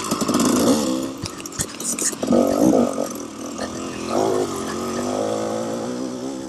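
KTM 300 XC-W two-stroke dirt bike engine at race pace, revving up and dropping back several times as the throttle is worked. A cluster of sharp clicks and knocks comes between about one and two seconds in.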